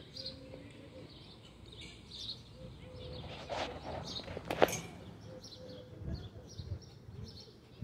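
Small birds chirping faintly in short, high chirps that come every second or so, with a brief sharp noise about halfway through.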